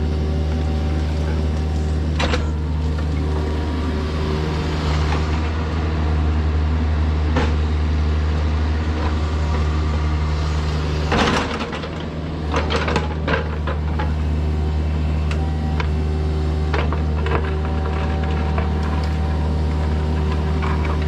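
Kubota mini excavator's diesel engine running steadily, broken by sudden knocks and scrapes, the loudest cluster about eleven to fourteen seconds in.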